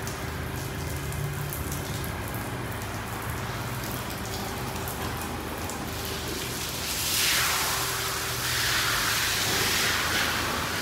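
Water spray from a D&S IQ Express ST car wash hitting the car, sounding like steady rain on the body. A louder hiss of spray comes in about six and a half seconds in and keeps going.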